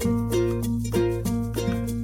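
Background music: light plucked-string tune, ukulele-like, with a steady bass line and notes picked about four times a second.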